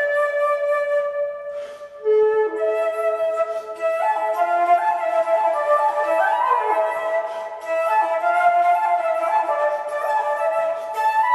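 Flutes playing slow, sustained music in several parts at once, with no bass below the flutes' range. There is a brief break about two seconds in before a new phrase begins.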